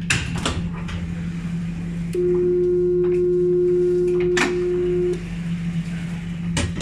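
Tram door-closing warning tone: one steady beep held about three seconds, over the constant hum of the standing tram's equipment. Sharp knocks and clicks come at the start, during the tone and near the end.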